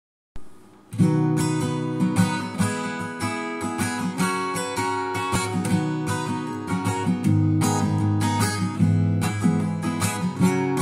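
Acoustic guitar strummed in a steady rhythm, chords played as a song's intro, starting about a second in after a faint first touch of the strings.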